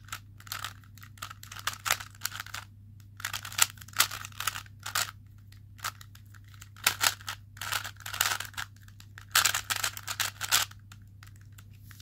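Plastic speed cube being turned by hand: quick runs of clicking, scraping layer turns in bursts, with short pauses between them.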